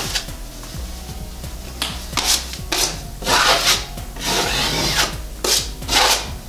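Steel drywall taping knife drawn down an outside corner, pressing tape into wet setting-type joint compound (hot mud) along the corner bead. It makes a series of short scraping strokes, starting about two seconds in.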